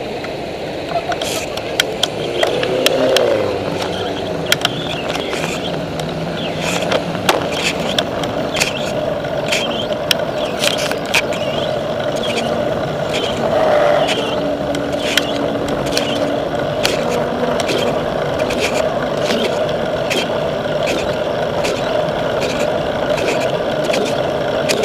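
Ride noise picked up by a bicycle-mounted camera on a city road: a steady rush of tyre and wind noise with frequent sharp clicks and rattles as the bike rolls over the road surface. A motor vehicle's engine passes about two to four seconds in.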